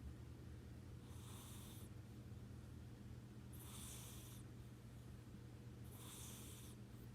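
Domestic cat snoring softly in deep sleep: a hissing breath about every two and a half seconds, three in all, over a steady low hum.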